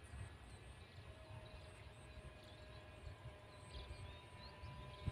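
Faint, steady drone of a distant RC model airplane's OS 15LA two-stroke engine flying high overhead, growing clearer about a second in.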